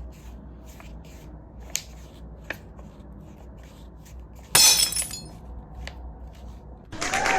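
An added glass-shattering sound effect: a sudden loud crash with high ringing about halfway through, after a few faint clicks. Near the end an applause sound effect begins.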